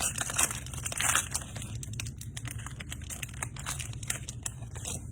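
Crinkling and crackling of a foil trading-card pack wrapper being handled and torn, irregular and busiest in the first couple of seconds.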